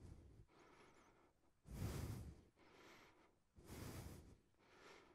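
A man breathing hard under exertion in a side plank: a strong, noisy exhale about every two seconds, with softer breaths between.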